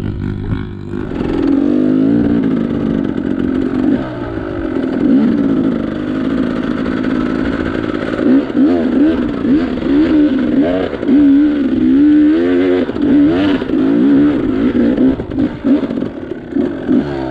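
Enduro trail motorcycle engine being ridden, its revs rising and falling over and over, with the swings coming quicker in the second half.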